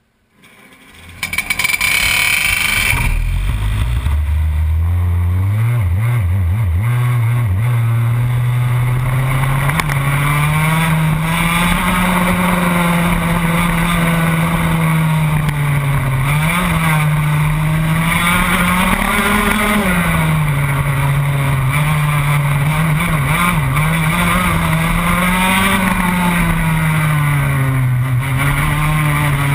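Racing kart engine starting up about a second in, then running hard as the kart laps. Its pitch rises and falls again and again as the kart accelerates and slows through the corners.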